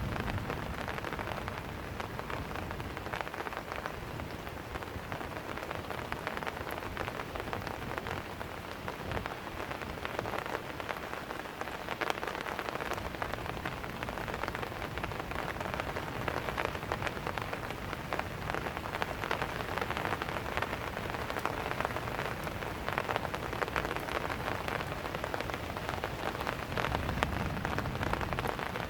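Steady rain falling and pattering on surfaces, with many fine individual drop hits.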